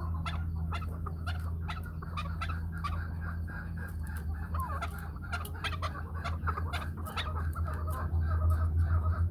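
Several chukar partridges (chakor) calling, a dense run of quick, repeated clucking notes, over a steady low hum.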